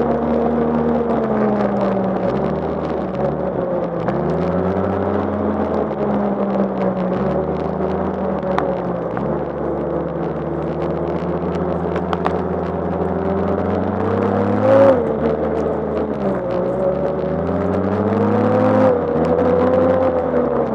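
2012 Arctic Cat F1100 Turbo snowmobile's turbocharged four-stroke twin running hard at trail speed, its pitch dipping and climbing again several times as the throttle is eased and reopened through the bends. There is a brief louder burst about fifteen seconds in.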